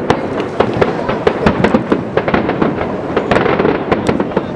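Fireworks display: a dense, irregular run of sharp bangs and crackling shell bursts, several a second, over a continuous rumble.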